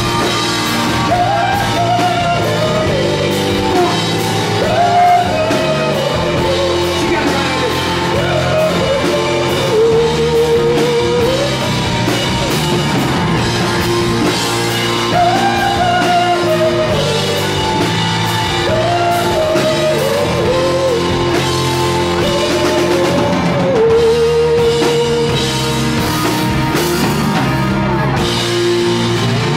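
A live rock band playing loud, with electric guitars (a Les Paul-style and a Stratocaster-style) over drums and bass. A lead melody line bends up and falls back every second or two.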